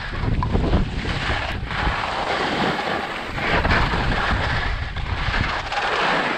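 Skis hissing and scraping over snow in a fast, steep descent, the hiss swelling and easing with each turn, over a heavy low rumble of wind buffeting an action camera's microphone.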